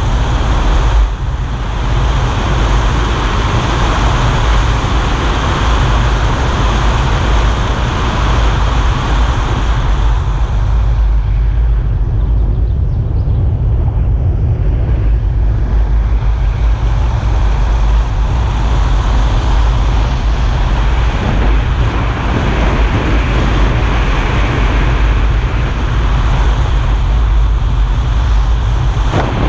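Car driving on a wet road, heard from a bonnet-mounted camera: a steady rumble of wind on the microphone with tyre and road noise on the wet asphalt. The higher hiss softens for several seconds midway, then returns.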